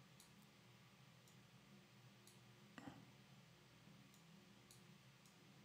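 Near silence with faint computer mouse clicks, about eight of them spread out and one a little louder near the middle, over a low steady room hum.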